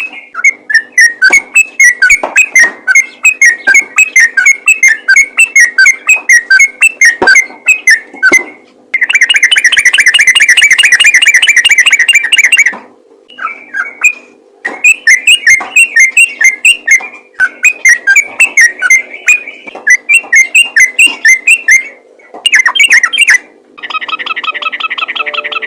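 Sooty-headed bulbul song played loud: fast runs of short bubbly whistled notes, broken by brief pauses, with a denser unbroken trill in the middle and a buzzier, even stretch near the end.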